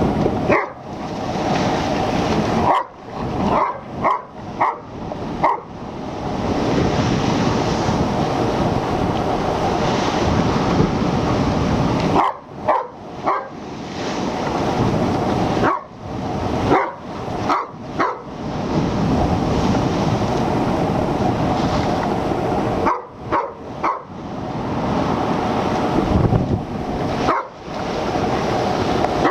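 A German Shepherd barking in short bursts of a few barks at a time, over a steady loud rush of wind and breaking surf.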